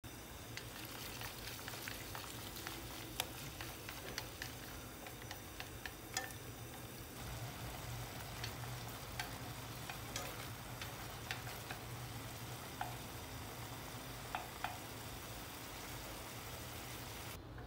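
Instant noodles and rice cakes simmering in broth and sauce in a stainless steel frying pan, a steady sizzling hiss with a dozen or so light, sharp clicks and taps scattered through it.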